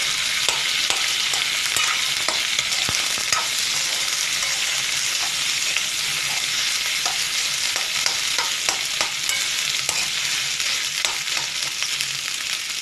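Boiled potato pieces, green peas and peanuts frying in oil in a kadhai, with a steady sizzle, while a steel spoon stirs them, clicking and scraping against the pan at irregular moments.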